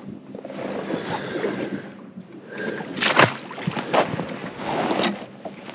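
Water sloshing around a fishing boat, broken by a few sharp knocks and rattles. The loudest knock comes about three seconds in, with more near four and five seconds.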